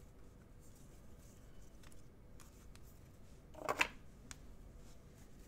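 Trading cards being handled and sorted: faint scattered clicks and rustles of cards sliding over one another, with one louder short sound a little under four seconds in.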